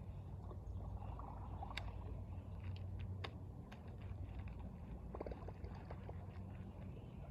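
Steady low rush of flowing river water, with a few faint scattered clicks over it.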